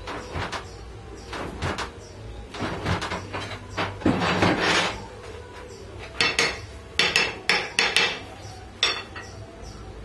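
Hammer striking metal at a workbench: light knocks, a longer rattling scrape around the middle, then a quick run of about eight sharp blows in the second half.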